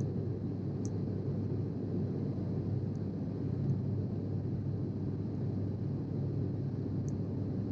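Steady cabin noise of a Sukhoi Superjet 100 in flight: the low, even rush of airflow and its SaM146 turbofan engines, with a couple of faint high clicks about a second in and near the end.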